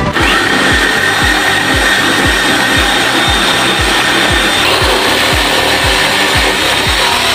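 Electric drill driving a reciprocating saw adapter, its blade cutting wood with a steady rasping buzz that starts at once and runs without a break. Background dance music with a steady beat plays underneath.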